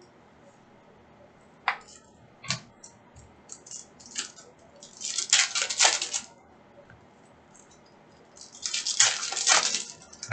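Foil trading-card pack wrappers crinkling and tearing as packs are ripped open by hand, in two crackly bursts about five and nine seconds in. A couple of light clicks from the cards come before them.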